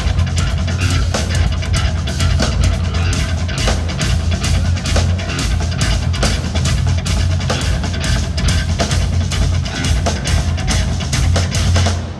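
Live instrumental progressive metal band playing loud: eight-string electric guitar riffing over fast drums and a heavy low end. The music stops abruptly near the end.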